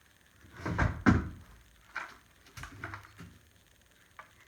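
A few knocks and clunks from something being handled and set down: two loud ones close together about a second in, then three or four lighter knocks.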